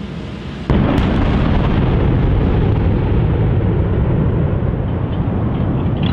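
A sudden loud, low rumbling noise that starts under a second in and runs on steadily.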